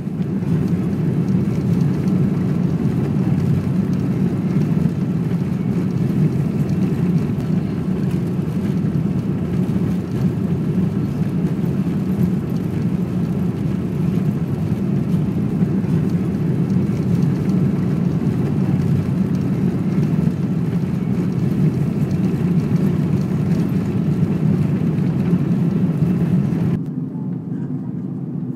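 Jet airliner cabin noise heard from a window seat over the wing: a loud, steady engine noise. It steps down abruptly to a quieter level near the end.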